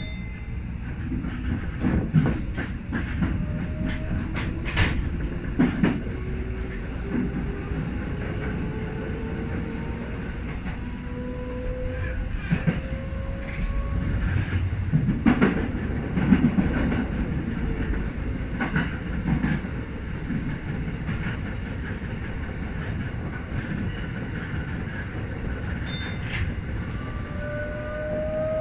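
Hibiya Line subway train running on open track, heard from inside the front car: a steady rumble with wheels clacking over rail joints and points. The electric traction motors whine in a slowly rising tone as the train gains speed, twice.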